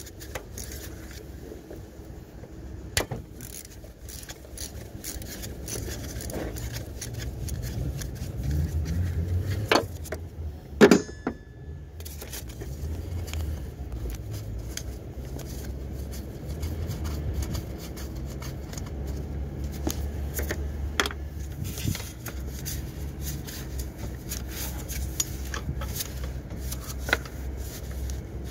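Socket wrench and extension being worked on an alternator mounting bolt: irregular small metal clicks and scrapes over low handling rumble, with a few louder knocks, one about three seconds in and two around ten to eleven seconds.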